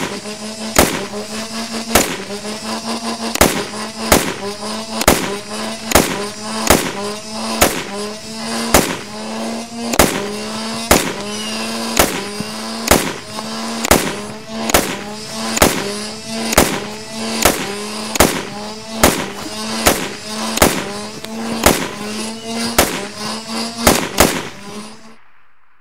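Gunshot sound effects dubbed over a toy Nerf blaster: about thirty loud single shots, roughly one a second and coming quicker toward the end, each followed by a short rising tone, over a steady low hum.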